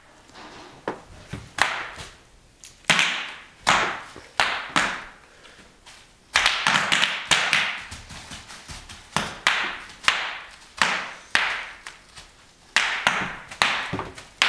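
Bubble wrap popping: sharp, irregular pops, some single and some in quick bunches, with a denser run of pops about halfway through.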